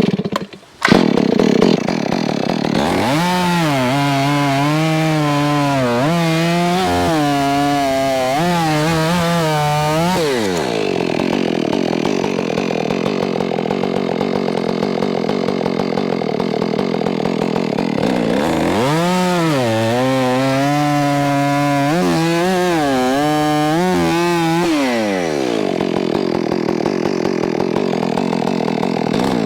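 Stihl MS461 two-stroke chainsaw cutting through a green ash log at full throttle. The engine pitch rises and falls over and over as the chain loads and unloads in the cut, with steadier stretches in between.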